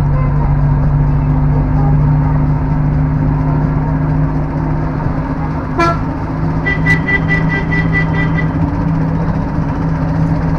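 A motor vehicle's engine running steadily with a low hum, heard from on board while driving. About six seconds in, a horn toots once briefly, then a rapid string of about eight high beeps sounds for under two seconds.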